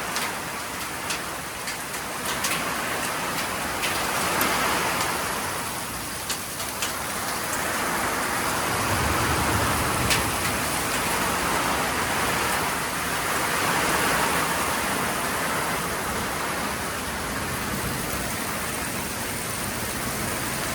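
Heavy rain pouring down, its hiss swelling and easing every few seconds, with scattered sharp ticks of drops striking hard surfaces.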